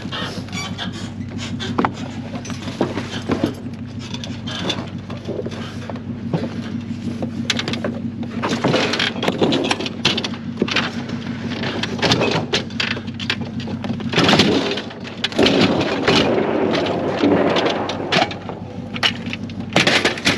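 Black plastic trash bags rustling and an aluminium hand truck being lifted and knocking against a wooden trailer bed, with many knocks and clicks. Under it runs a steady low engine hum that stops about two-thirds of the way through.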